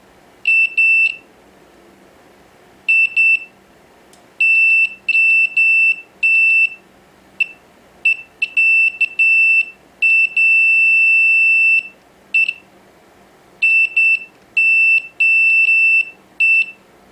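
Digital multimeter's continuity beeper: about fifteen irregular beeps of one high tone, some brief and the longest about two seconds, as the test probes make and break contact on circuit board points. Each beep marks continuity through the filters under test, which check out good.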